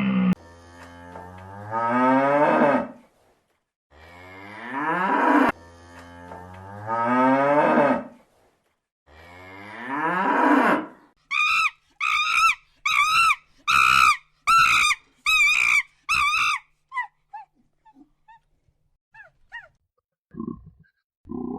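A cow mooing four times in long drawn-out calls. After that comes a quick run of about eight short, higher-pitched calls from another animal.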